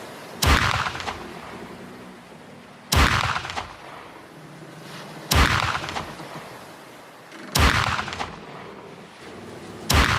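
Eight-round revolver firing single shots, five in all, about two and a half seconds apart, each sharp crack trailing off in a short echo.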